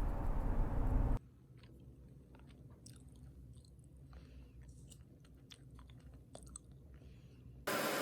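A person chewing and biting food close to the microphone: small crisp clicks and crunches scattered over several seconds. Before that, music runs for about the first second and cuts off abruptly.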